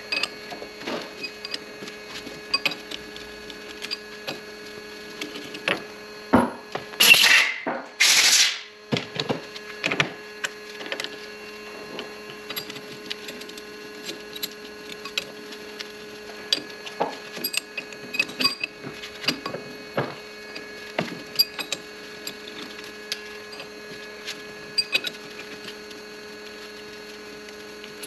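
Steady machine hum, as of a machine tool's motor running, with scattered small clicks and knocks of metal being handled. About seven and eight seconds in come two short, loud rushes of noise.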